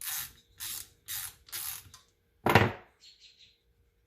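Ratchet wrench worked back and forth in short strokes, about two a second, backing out a bolt on a lawn mower transaxle's guard; after four strokes comes a single loud knock about two and a half seconds in.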